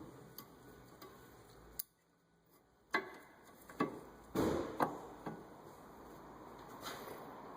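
Sharp metallic clicks and knocks of brake parts being handled and fitted, with a short clattering scrape in the middle of a run of clicks.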